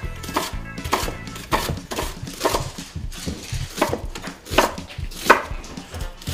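Chef's knife slicing a red onion into thin strips on a wooden cutting board: a series of crisp cuts, each ending in a knock of the blade on the board, at an uneven pace of roughly one a second.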